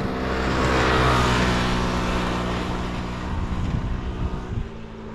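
A motor vehicle engine running with a steady hum and hiss. It is loudest about a second in, then fades away over the next few seconds as the vehicle moves off.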